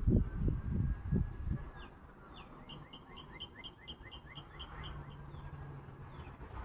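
A songbird singing one rapid phrase of about a dozen quickly repeated high, two-part notes, starting about two seconds in and lasting nearly three seconds. Before it, low rumbling thumps fill the first second and a half.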